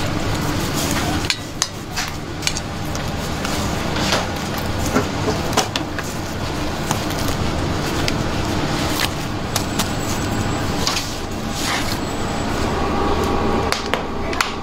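Bakery work clatter: many short sharp knocks and clinks of metal baking trays and utensils over a steady low hum.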